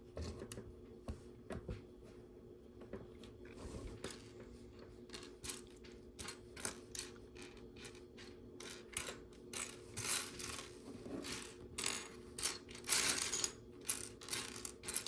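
Loose plastic LEGO pieces clicking and clattering as hands sift through a pile looking for a part. The clicks come sparsely at first, then grow quicker and louder in the second half, with a brief rustle a little before the end.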